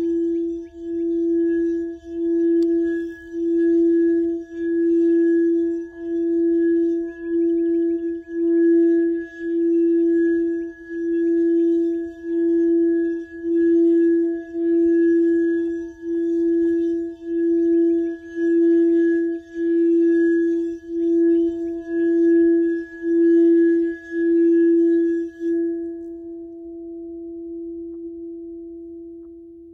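Frosted crystal singing bowl sung by rubbing a wand around its rim: one low, steady, pure tone with faint higher overtones, swelling and dipping about once a second, with light scratching from the wand. Near the end the rubbing stops and the tone rings on, slowly fading.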